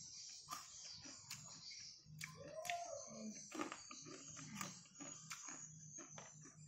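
Close-up eating sounds: chewing and crunching crisp fried intestine and rice, heard as a string of small sharp clicks and crackles.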